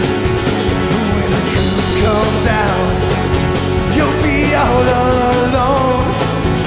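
Live bluegrass-leaning country band playing: strummed acoustic guitar, mandolin, electric bass and drum kit, with a man's lead vocal coming in about two seconds in.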